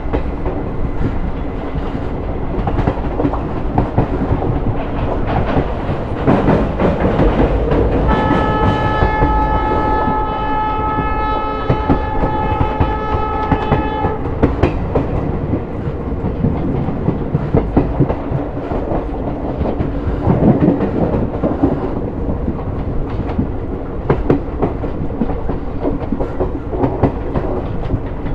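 Diesel-hauled express train running, its wheels clattering over the rail joints under a steady rumble. Partway through, the locomotive's horn sounds one long blast of about six seconds.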